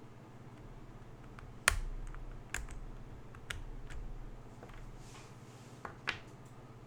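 Mechanical keyboard with Akko V3 Cream Blue Pro switches being pressed in a few separate, spaced-out keystrokes rather than continuous typing. The first keystroke, about one and a half seconds in, is the loudest and carries a low thock. A steady low hum runs underneath.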